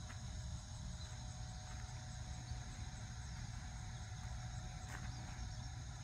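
Steady high-pitched insect trilling over a constant low rumble.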